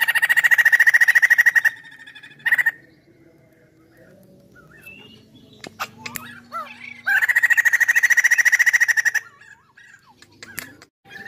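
Caged poksay laughingthrush calling: two loud, rapid rattling calls of about two seconds each, one at the start and one about seven seconds in, with a short burst and soft gliding whistled notes between and a few sharp clicks.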